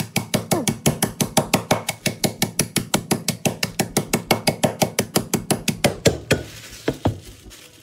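A rolling pin beating peanuts in a bag on a worktop to crush them: rapid, even knocks at about six blows a second, stopping about six seconds in, with one or two last strikes near the end.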